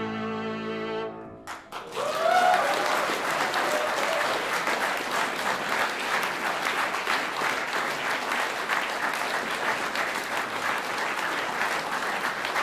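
The final chord of two violins and piano sounds and stops about a second and a half in, and the audience breaks at once into steady applause that carries on.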